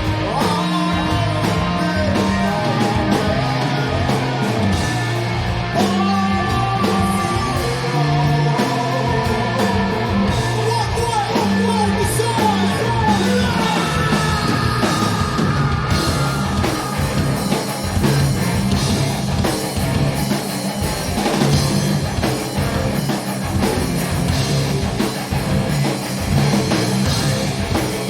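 Stoner rock band playing live: heavy rock with electric guitar and a singing, yelling voice over a steady, dense band sound.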